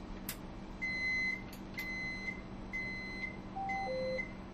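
Inside a Hong Kong Light Rail vehicle's cab: a steady electrical hum under four high electronic beeps, evenly spaced about a second apart. Near the end comes a short two-note falling tone, and a few sharp clicks are heard from the driver's controls.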